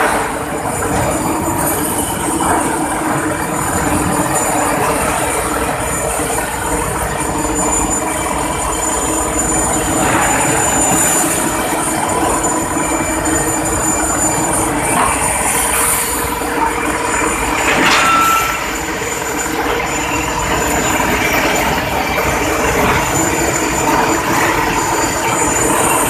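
Hot-rolling steel mill running: a loud, continuous din of rolling stands and roller-table machinery with steady whining tones as a red-hot steel bar is rolled. A brief, louder metallic burst with a short squeal comes about 18 seconds in.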